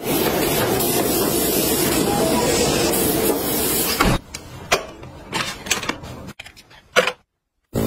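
Aerosol party snow spray hissing loudly and steadily for about four seconds, then stopping abruptly; a few light clicks and taps follow.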